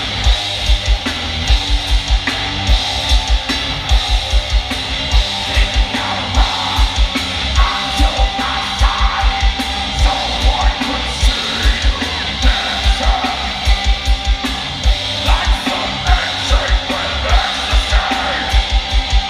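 Heavy metal band playing live: loud guitars and bass over a kick drum hitting several times a second.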